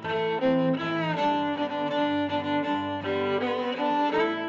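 Background music led by bowed strings, a violin melody over sustained lower string notes.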